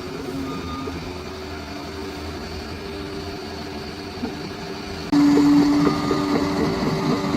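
Bulldozer's diesel engine running steadily, getting suddenly louder about five seconds in.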